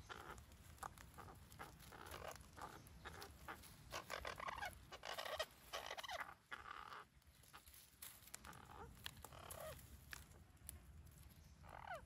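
Parakeets in a bush giving repeated short, harsh calls and chatter, loudest about four to six seconds in, with a couple of falling calls near the end.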